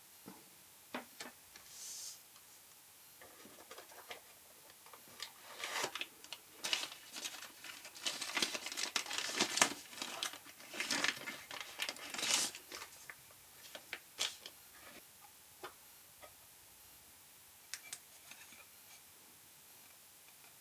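Packaging being handled and unwrapped: crinkling and rustling with scattered clicks and taps, busiest in the middle and thinning out toward the end.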